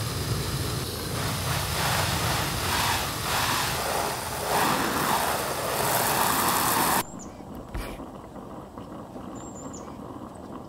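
Garden hose spray nozzle jetting water onto a canvas tent, a steady hiss of spray striking the fabric; the canvas is being wetted so it will tighten up and become waterproof. The spray stops abruptly about seven seconds in, leaving a much quieter background.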